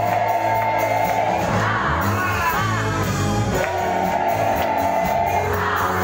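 Live amplified worship music: a band with a steady drumbeat and voices singing long held notes that break into gliding phrases, with the congregation singing along.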